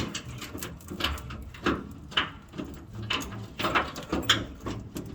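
Irregular clicks, clunks and scrapes of hand tools on metal, a few every second with no steady rhythm.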